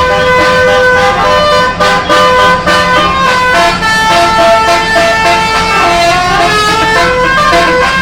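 A bus's multi-trumpet 'basuri' telolet horn playing a melody of quick stepped notes, with a steady low hum underneath.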